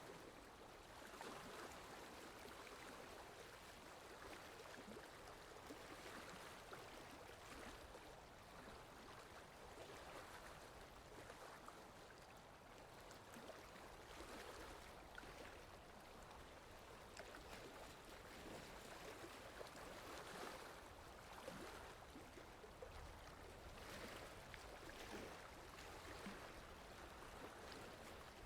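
Faint lake water lapping and splashing softly, swelling and easing every few seconds.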